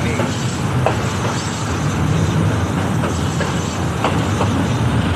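Train hauled by an Alsthom diesel locomotive rolling on the rails: a steady low rumble with scattered clicks of wheels over rail joints.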